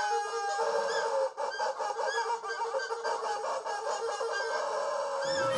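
Freely improvised group playing: many short, repeated high notes over one long held tone that slowly sinks in pitch, with lower sounds coming in near the end.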